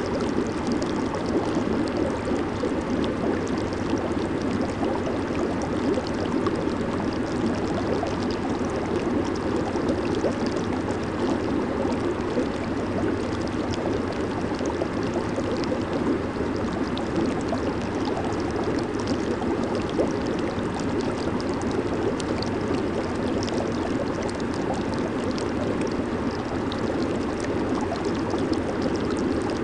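Jacuzzi hot tub with its jets running: steady churning, bubbling water with scattered small pops of bursting bubbles.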